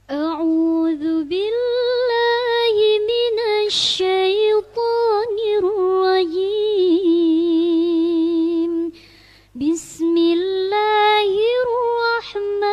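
A girl's voice reciting the Quran in melodic tajweed style, holding long notes with ornamented turns, with a pause for breath about nine seconds in.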